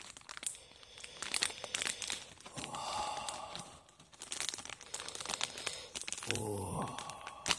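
Clear plastic film wrapper on a packaged microwave cheeseburger crinkling and tearing as it is peeled back from the plastic tray, in a run of irregular crackles. A brief vocal sound comes near the end.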